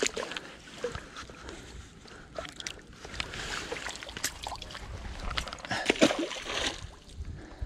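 Water splashing and sloshing as a large trout is let go from a landing net into shallow lake water, with the loudest splash about six seconds in. Short knocks and rustles of handling the net and gear come close by throughout.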